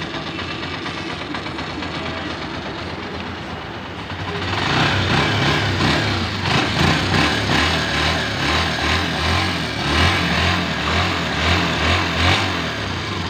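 Honda TMX 125 Alpha's single-cylinder four-stroke engine idling. About four seconds in it gets louder, with an uneven pulsing beat. After the tune-up it runs without its valve tick.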